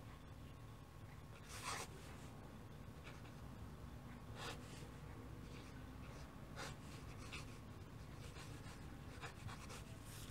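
Fountain-pen nib scratching on paper in a series of short, faint strokes as a signature is written, over a low steady hum.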